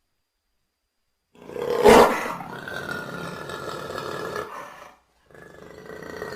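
A jaguar roaring: a sudden loud, rough call about a second and a half in that trails off over some three seconds, then after a short break a second drawn-out call building near the end.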